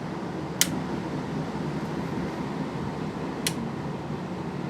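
1960s Westinghouse 10,300 BTU window air conditioner's blower fan running steadily on high speed, with the compressor not yet switched on. Two sharp clicks cut through it, about half a second in and again about three and a half seconds in.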